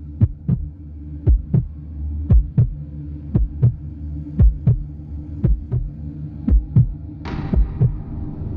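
Heartbeat sound effect in a dark intro score: pairs of deep lub-dub thumps about once a second over a low steady drone. A hissing swell comes in about seven seconds in and keeps building.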